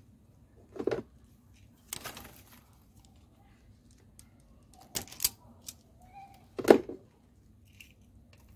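Self-adjusting wire stripper clicking and snapping shut as it cuts and strips the insulation off a red wire of the radiator fan wiring: a handful of sharp clicks, the loudest about two-thirds of the way through.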